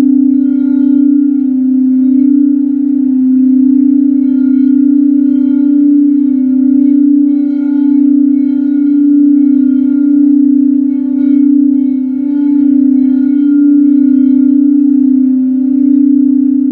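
Tibetan singing bowl being sounded by rubbing a mallet around its rim. It gives one steady deep tone with fainter higher overtones, swelling and dipping slowly as it sings.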